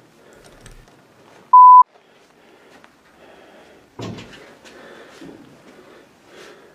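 A single short, loud electronic beep at one steady pitch about a second and a half in, over faint room noise. About four seconds in comes a sudden knock, followed by faint rustling as the handheld camera moves.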